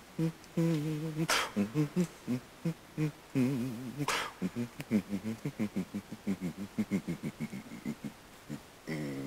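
Men's choir voices singing short, choppy rhythmic notes, some with a wavering pitch, cut across twice by a sharp hissing sound.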